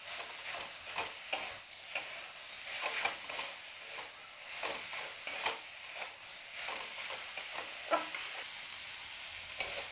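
Small prawns in masala sizzling in an aluminium kadai while a metal spatula stirs them, scraping and knocking against the pan again and again over a steady sizzle.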